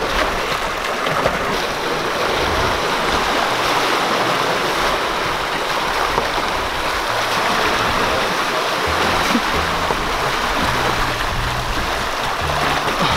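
Steady rush and splash of seawater around a person being towed on a rope through the sea behind a moving sailboat. Background music plays underneath, its bass notes clearer in the second half.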